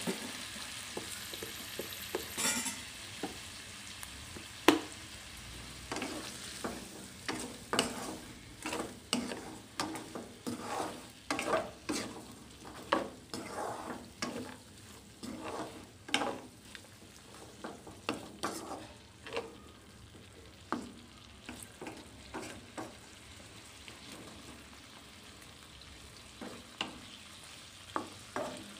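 Wooden spatula stirring and scraping fried chicken and onion pieces around a non-stick wok in quick repeated strokes, over frying sizzle. The sizzle is loudest at the start, where a little water has just gone into the hot pan, and fades. There is one sharp knock about five seconds in.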